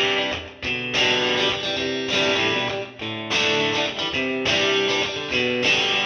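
Outro music: a guitar playing chords in short phrases.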